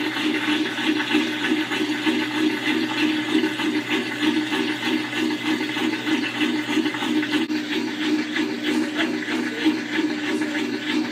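Belt-drive Kenmore top-loading washer running an empty rinse cycle, with a steady rush of water and a pulsing hum from the machine.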